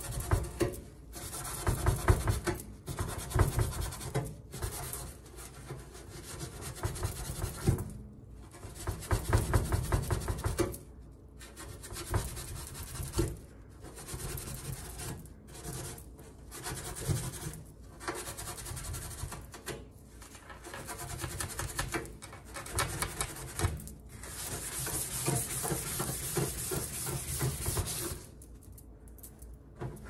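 Hand scrubbing the stainless steel side panel and vent slots of a toaster oven, in runs of quick back-and-forth rubbing strokes broken by short pauses.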